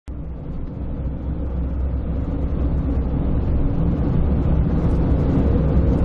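Steady low rumble of road and engine noise heard inside the cabin of a Winnebago Travato camper van driving down a highway, slowly growing louder.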